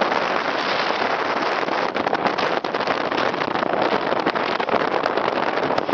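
Wind rushing over the microphone while riding along a road, with the steady noise of traffic and a few sharp knocks.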